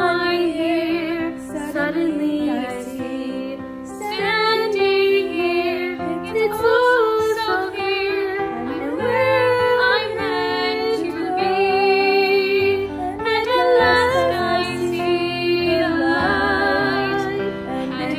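Small group of young female voices singing a slow ballad in harmony, with vibrato on the longer held notes.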